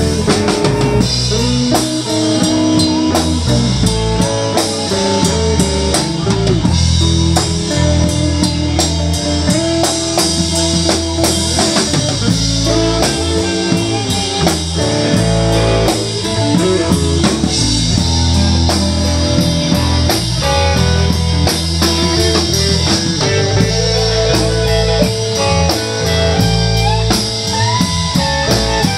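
Live blues band jamming: electric guitars, bass guitar and drum kit playing together.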